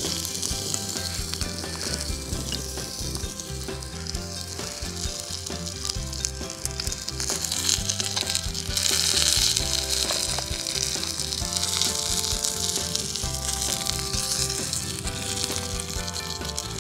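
Burger patty (pljeskavica) sizzling as it fries in a carbon steel pan, a steady hiss that swells louder about halfway through.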